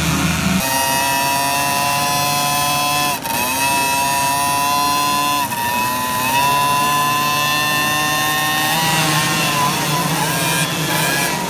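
Several 50cc mini motocross bike engines held at high revs together on the starting line, each at a slightly different steady high pitch. The pitches dip briefly a couple of times and waver near the end.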